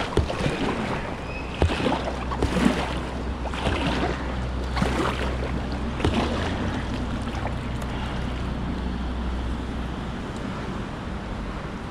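Kayak paddle strokes splashing about once a second over steadily rushing river water; the strokes stop about two-thirds of the way through.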